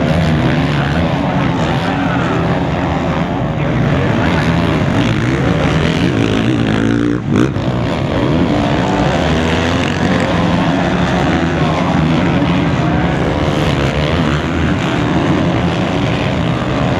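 Motocross race bikes on the track, engines revving up and down as the riders accelerate and shift. The sound breaks off briefly about seven seconds in.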